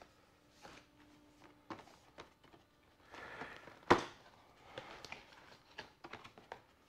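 A black cardboard helmet box being worked open by hand: faint scrapes and rustles of the lid and its sides, with one sharp knock about four seconds in.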